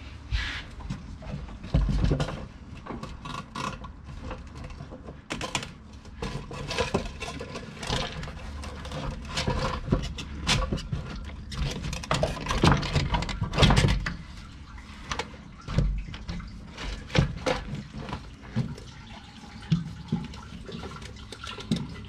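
2003 Chevy Silverado fuel pump module being worked up out of the fuel tank: irregular knocks and rattles as the assembly is twisted through the opening, with fuel sloshing and dripping back into the tank.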